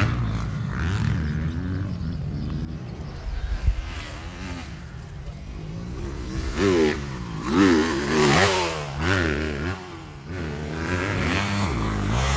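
250 cc grasstrack racing motorcycles, several engines revving up and down as the bikes race past. About two-thirds of the way through, the pitch swings rapidly high and low with throttle blips and gear changes, at its loudest for a couple of seconds.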